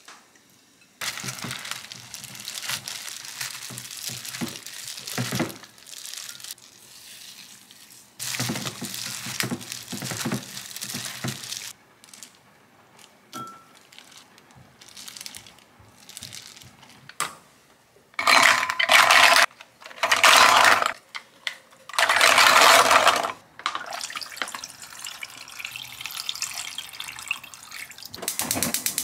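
Kitchen food-prep sounds: seasoned cabbage tossed and squished by a gloved hand in a glass bowl, in two stretches of rustling. Then three loud bursts of running water, and near the end water poured from a bottle into a pot of scallops.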